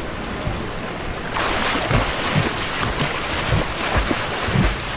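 Water splashing from a swimmer's strokes: a continuous wash with repeated splashes, getting brighter and louder about a second in.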